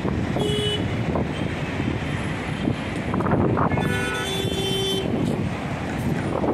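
Road traffic noise with car horns honking twice: a short toot about half a second in and a longer honk around four seconds in, over wind rumbling on the microphone.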